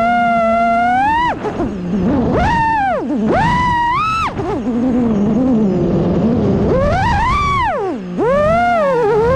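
FPV quadcopter's brushless motors on a 6S battery whining, the pitch gliding up and down with the throttle: steady at first, then quick punches up and chops down, a lower wavering stretch in the middle, and a swoop back up near the end.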